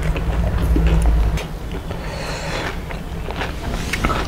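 Crisp pani puri being bitten and eaten, with short crunches and wet slurping, over a steady low hum that is loudest in the first second or so.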